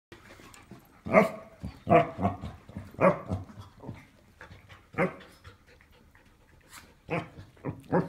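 Basset hound giving short, low play barks, about six spaced a second or two apart, facing off with a parrot.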